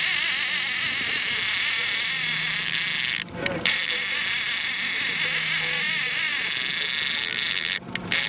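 Fishing reel drag screaming steadily as a big chinook salmon strips line off the reel, threatening to spool it. The buzz breaks off briefly about a third of the way in and again near the end.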